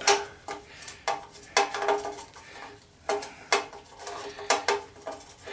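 A dozen or so sharp, irregular metallic clinks, several with a short ring after them: a screwdriver working on the metal case of a golf cart battery charger that is being taken apart.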